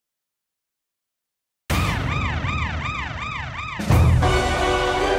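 Silence, then about a second and a half in a siren starts wailing up and down about twice a second over a low rumble. About two seconds later loud music with a heavy bass line cuts in.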